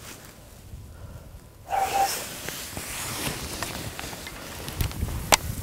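Footsteps and clothing rustling through tall dry grass, with a brief squeak about two seconds in and a single sharp click near the end.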